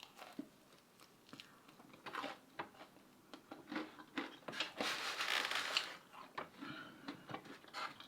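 Close-miked eating sounds: scattered soft chewing clicks and mouth noises, with a louder rough, rustly stretch lasting about a second around five seconds in.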